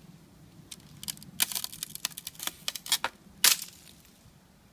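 Ice crunching and crackling in a quick, irregular run of sharp clicks lasting about two and a half seconds, ending in one louder crack.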